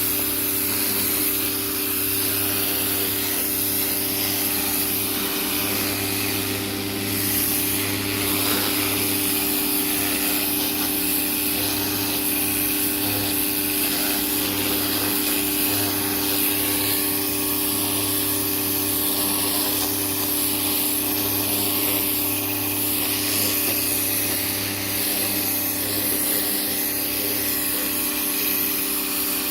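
Greenworks 1600 psi electric pressure washer running steadily: its motor and pump hum under the loud hiss of a water jet spraying from a turbo nozzle.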